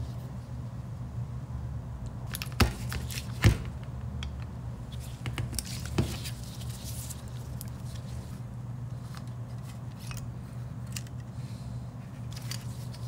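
Small metal carburettor parts and tools clicking and knocking on a workbench during a strip-down, with three sharper knocks about two and a half, three and a half and six seconds in. A steady low hum runs underneath.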